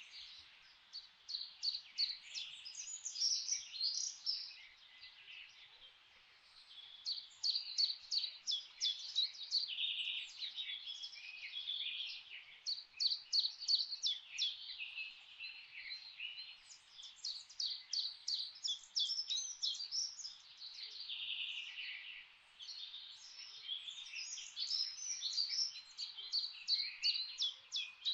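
Songbirds singing in a forest chorus: rapid chirps and trills in repeated phrases, overlapping one another, over a faint steady background hiss.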